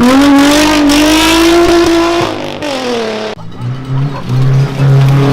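Rally car engine at high revs, its note held high and steady with a slight sag for about three seconds, then cutting off abruptly into a lower, steadier engine hum.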